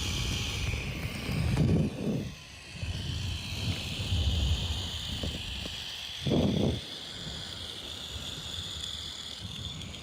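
Outdoor wind buffeting the microphone in uneven gusts, strongest twice (about a second and a half in and near the middle), over a steady high-pitched drone.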